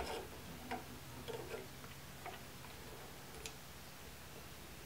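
A few faint, scattered clicks of pliers and small metal parts of a SPAS-12 shotgun's gas valve assembly being worked into place.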